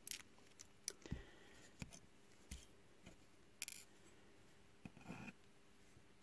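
Faint, scattered small clicks and ticks, seven or eight in all, with a brief rustle about five seconds in: hand handling of a surface-mount IC and its plastic carrier tape.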